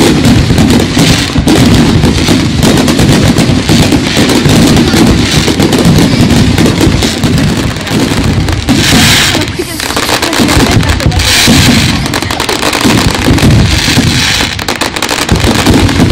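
Fireworks display: a dense, continuous run of bangs and crackles, with several bursts of high crackling hiss partway through.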